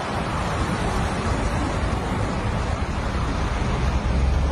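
Steady road and wind noise from a car moving in heavy highway traffic.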